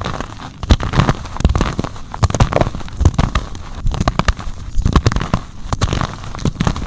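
Soft, crunchy gym chalk being crushed and crumbled, making a dense run of sharp crackles and crunches.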